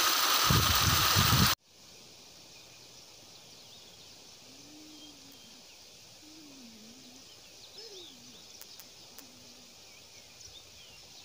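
A loud, steady rushing noise for about the first second and a half, cut off suddenly. After it comes quiet hillside ambience with faint bird chirps and a few faint gliding calls.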